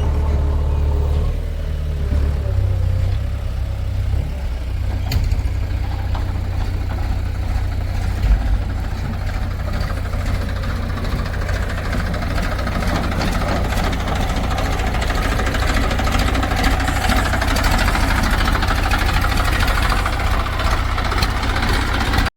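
Heavy diesel machinery engine running steadily with a deep low drone, its mechanical clatter growing louder through the second half as it works under more load.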